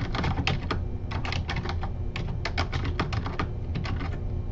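Typing on a computer keyboard: quick, irregular runs of keystrokes that pause briefly near the end, over a steady low hum.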